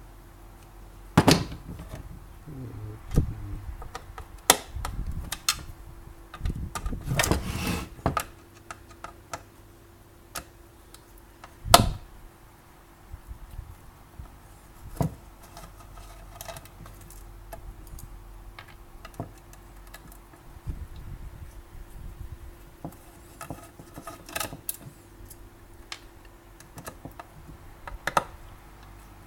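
Intermittent clicks, knocks and light clatter of an omelette maker's parts being handled and taken apart by hand, with a dense run of rattling about seven seconds in and a sharp knock near twelve seconds. A faint steady hum runs underneath.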